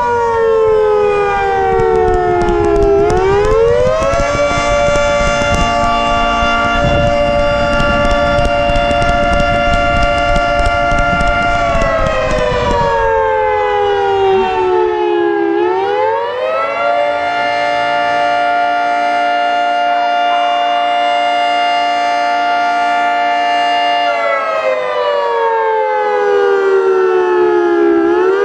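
Federal Sign & Signal 3T22 three-tone outdoor warning siren sounding its Attack signal for a monthly test: a loud chord that slides down in pitch, climbs back up and holds for several seconds, over and over, about every 12 seconds. A low rumble runs under the first half.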